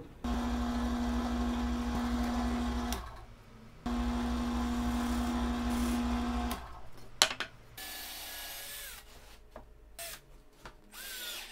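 Benchtop drill press motor running steadily in two runs of about three seconds each, with a short pause between, while drilling plywood. After about seven seconds a cordless drill/driver whirs briefly twice, the second whir rising in pitch near the end.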